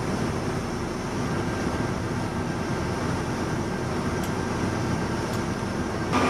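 Steady rumble and hiss of an idling coach bus heard from inside the cabin, with a faint steady whine joining about two seconds in.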